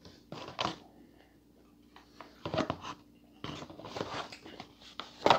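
Soft, scattered rustling and crinkling from a foil freeze-dried meal pouch being handled, mixed with quiet chewing. The longest stretch of rustling comes in the second half, over a faint steady hum.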